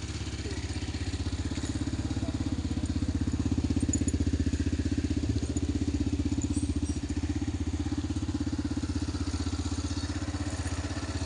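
A 250cc ATV's air-cooled single-cylinder engine idling with a steady, fast beat, rising a little around four seconds in.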